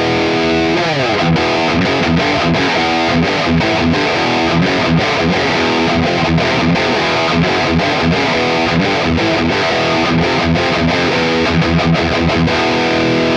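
Cort G260 electric guitar played through distortion: a fast, busy passage of rapidly picked notes and chords, with a downward pitch slide about a second in.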